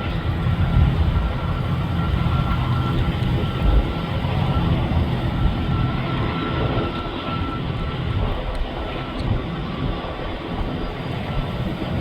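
Jet aircraft engine noise: a steady low rumble with a thin high whine that fades in and out.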